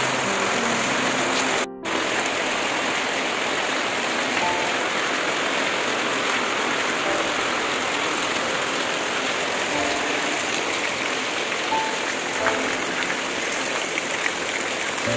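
Steady rain, an even hiss of rain falling on the ground and standing water, with runoff pouring off the roof edge. The sound cuts out for a moment about two seconds in. Faint background music notes sit under it near the start.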